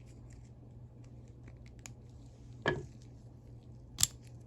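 Small metal clicks and taps of a Channellock 906R round-head ratchet being handled for disassembly, with two sharp knocks, one a little past halfway and one near the end. A steady low hum runs underneath.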